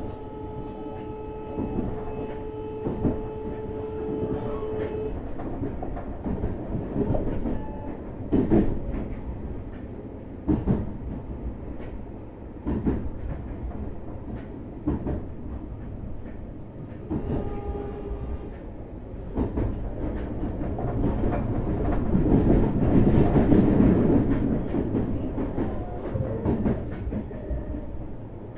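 Interior running sound of a JR Hokkaido 733 series electric train, heard from a motor car: a steady rumble with wheels clicking over rail joints as the train approaches a station stop. A steady electric whine from the traction equipment is heard at the start and cuts off about five seconds in, then returns briefly around eighteen seconds in. The rumble swells in the later part.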